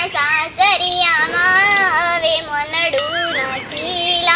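A high-pitched voice singing a song, holding long wavering notes with short breaks between phrases.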